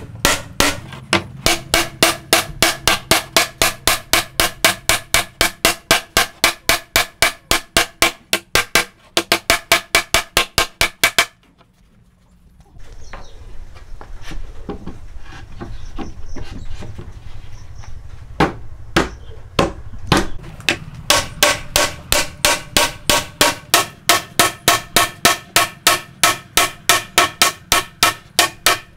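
Hammer blows on a wooden dovetail joint, struck fast and evenly at about four a second to drive the boards of a cabinet together. About a third of the way in the hammering stops for a while, with handling noise from the boards and a few single knocks. The rapid hammering then starts again and runs on.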